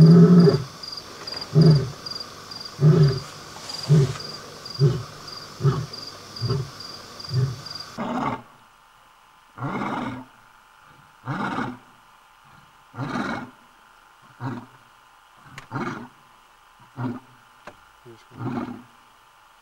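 African lion roaring: a run of deep grunts that grow shorter and closer together, then after a break a second bout of grunting roars about every one and a half seconds.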